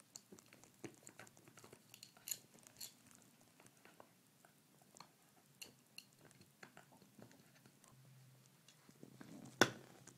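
A dog gnawing a deer antler chew: irregular clicks and cracks of teeth on hard antler, with one louder crack near the end.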